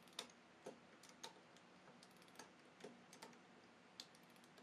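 Near silence broken by faint, irregular light clicks, about ten of them.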